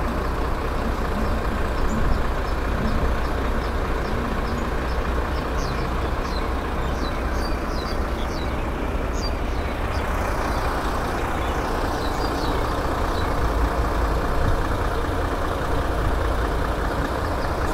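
Heavy truck diesel engine idling steadily, a constant low rumble, with faint short high chirps over it in the middle.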